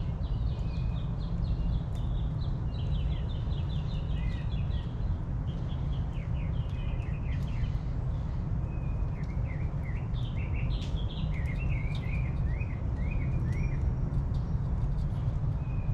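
Backyard birds chirping in quick runs of short, high notes over a steady low rumble.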